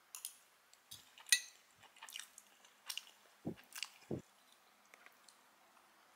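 Eating sounds: a metal fork clicking and scraping against a ceramic bowl of fried rice, with quiet chewing. There are two soft low thumps about three and a half and four seconds in.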